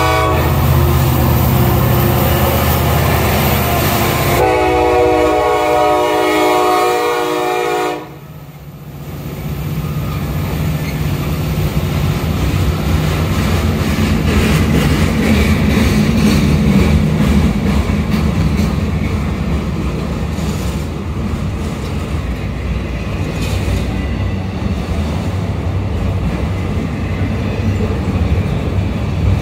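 Norfolk Southern freight train led by two EMD SD70ACe diesel locomotives passing close by: engine rumble, then one long horn blast from about four seconds in that cuts off sharply at about eight seconds. After it the freight cars roll past steadily, the rolling noise building up over the next few seconds and holding.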